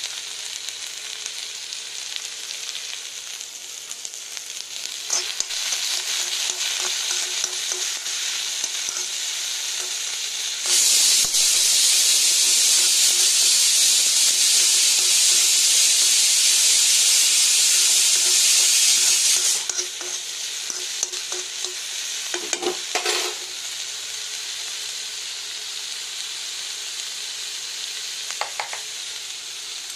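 Chopped onion, carrot and capsicum sizzling in a kadhai as they are stirred with a spatula. About ten seconds in, a loud high-pitched steam hiss starts suddenly, holds for about nine seconds and cuts off abruptly: a pressure cooker whistling as it vents steam.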